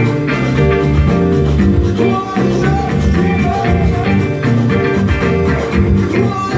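Live band playing a rhythmic groove: electric guitars over a pair of hand drums.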